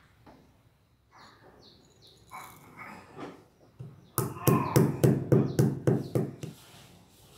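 Pestle pounding peppercorns in a mortar to crush them, a run of about nine hard strikes about four a second starting a little past halfway, after a few lighter taps.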